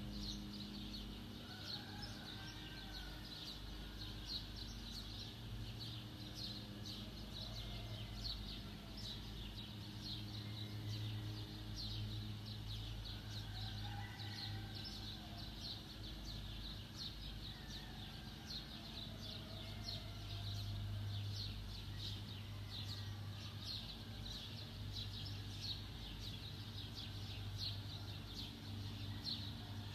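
Continuous rapid high chirping, typical of birds, over a steady low hum.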